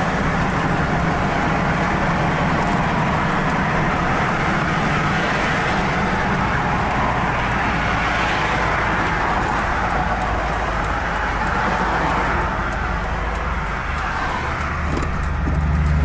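Steady road and engine noise heard from inside a moving vehicle's cab, with tyres on the road and the engine running. It eases off in the last few seconds as the vehicle slows to turn off the road.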